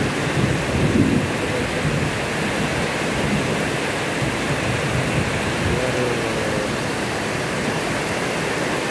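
Heavy rain pouring down steadily, with runoff streaming off a roof edge.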